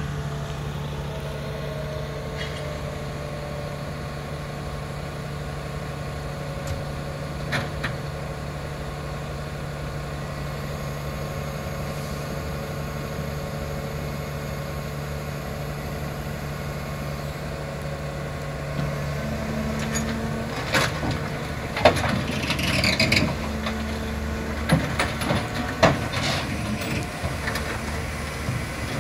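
Sampo FR68 forwarder's diesel engine running steadily at idle, then picking up about two-thirds of the way through. Over the last third come a series of sharp metal clanks and knocks as the heavy machine rolls down the trailer's loading ramps.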